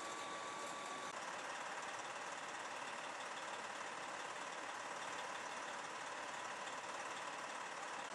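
Steady, even hiss-like background noise, with a faint high steady tone that cuts off about a second in.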